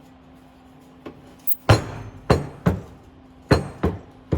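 Sharp metallic clanks with a ringing tail from a repaired Thunderbird hood hinge being worked, about six in quick succession starting around a second and a half in.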